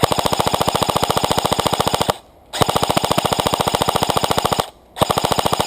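Airsoft electric rifle (AEG) firing on full auto in three long bursts, each of rapid, evenly spaced shots: about two seconds, then two seconds, then a shorter burst near the end, with brief pauses between.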